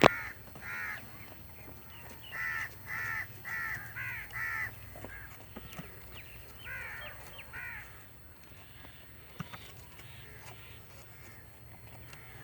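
A crow cawing in short, harsh calls: one near the start, a run of five from about two to five seconds in, and three more around seven seconds. There is a sharp click at the very start.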